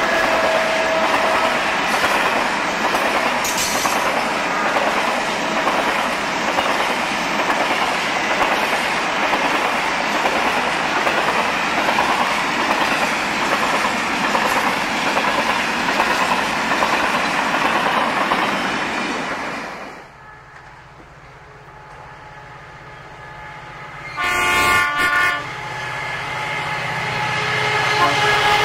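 Grain hopper wagons rolling past with a steady rumble of wheels on rail. After about 20 s it drops to the quieter low hum of an approaching diesel locomotive. The locomotive sounds its multi-tone horn for about a second and a half, and the train grows louder as it nears.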